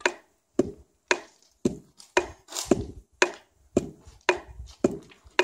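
Roasted coffee beans being pounded in a Bedouin coffee mortar (mihbash) with a pestle: steady, evenly spaced knocks, about two a second, each ringing briefly, with a quick double stroke now and then in a played rhythm.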